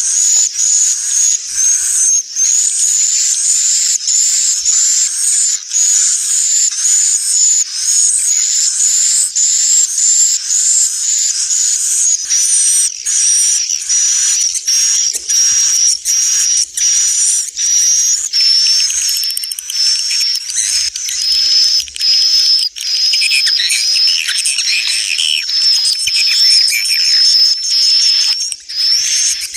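Edible-nest swiftlet lure call ('suara inap', roosting call): a dense, continuous stream of rapid, high-pitched swiftlet chirps and twitters, with a lower twittering layer joining about two-thirds of the way through. It is a call track played in swiftlet houses to draw the birds in to roost and nest.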